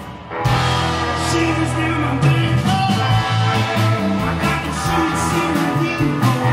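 Live blues-rock band playing electric guitars, bass guitar and drums. The music drops away briefly at the start, then the band comes back in on a long held bass note before picking up a steady rhythm about two seconds in.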